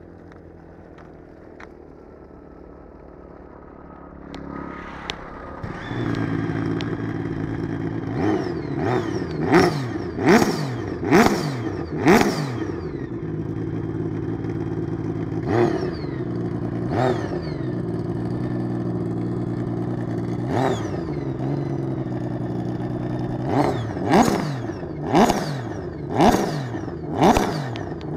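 Sea-Doo RXT personal watercraft engine starting about five seconds in, settling into a steady idle, then revved in many short blips, each rising and dropping back, with clusters of quick revs near the middle and toward the end.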